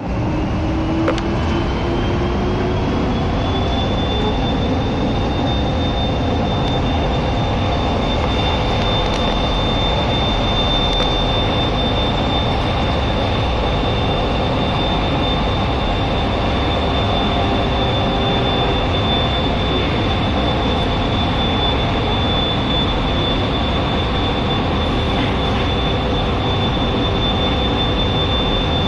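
Bombardier Innovia APM 200 people-mover train heard from on board as it runs along its guideway: a steady rumble of rubber tyres with an electric motor whine that rises in pitch over the first few seconds as the train picks up speed, then holds steady.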